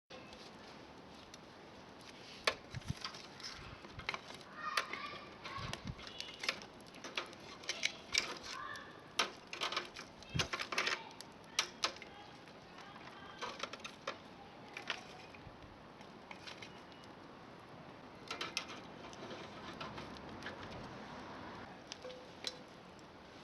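Irregular sharp clicks, knocks and clatter of objects being handled, thickest in the first half and sparser later, over a steady background hiss.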